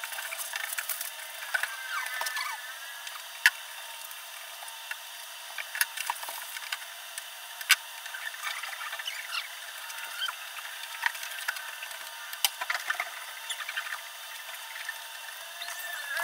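Hands working on a wooden desk: scattered clicks, taps and light crackling as a wood-grain covering sheet and loose wooden panels are handled. A few sharp knocks stand out, with a couple of brief squeaks near the start and the end.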